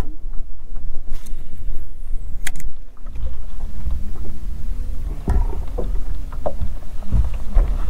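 Wind buffeting the microphone on a bass boat's open front deck, with water lapping at the hull and a few knocks. A faint steady hum joins about three seconds in.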